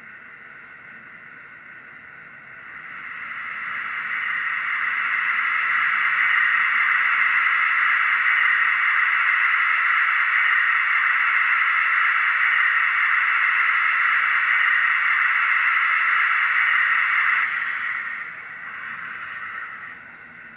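Steam locomotive safety valve blowing off, a recorded sound played by the DCC sound decoder of a Bachmann GWR 94XX pannier tank model through its small onboard speaker. It is a steady hiss that swells in a couple of seconds in, holds, and dies away near the end.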